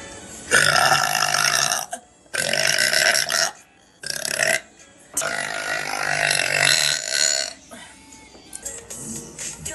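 A young woman burping loudly four times in a row: two long burps of over a second each, a short one, then a long drawn-out one of more than two seconds.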